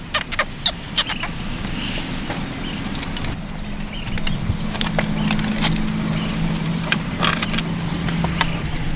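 Scattered light knocks and clicks of stones and wood being handled as a dugout shelter's stone wall is built. A steady low hum comes in about a third of the way through.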